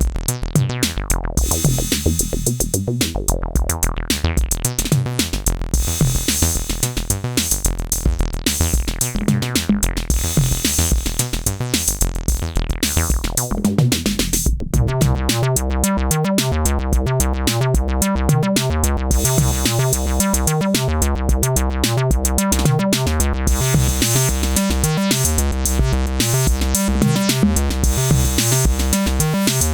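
Elektron groovebox playing an acid bass line over a drum machine beat. About halfway through, a sweep leads into a fuller, slightly louder section of the pattern.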